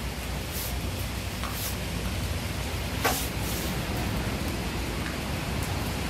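Steady outdoor background hiss with a low rumble. Over it come a few brief rustles as a napkin wipes the tabletop, and one sharp tap about three seconds in.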